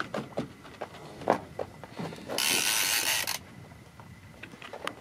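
Heavy boat-fishing reel under load from a big hooked skate, with a burst of whirring lasting about a second, midway through. Around it come small knocks and creaks from the bent rod and the aluminium boat.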